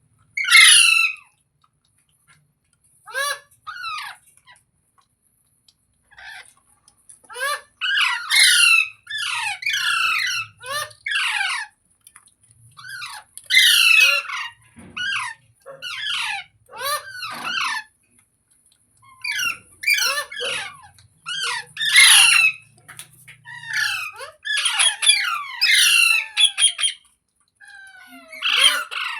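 Green parrot squawking repeatedly: harsh, screechy calls in bursts of several at a time, with short pauses between bursts.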